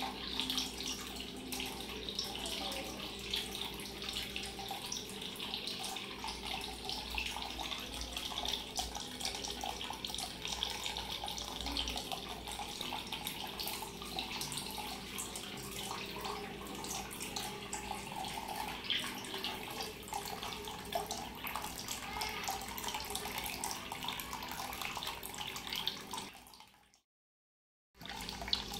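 Steady trickling and splashing of thin water streams falling from spouts into a home-made aquarium tank, with bubbling. It fades out about 26 seconds in, a second of silence follows, and the splashing comes back just before the end.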